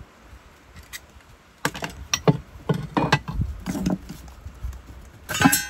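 Metal tools and scrap being handled on a wooden plank floor: scattered knocks and scrapes, then a short metallic clatter with brief ringing near the end.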